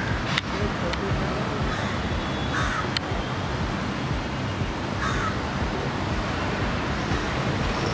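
Crows cawing several times, spread out, over steady street noise. A few sharp clicks come near the start and again about three seconds in.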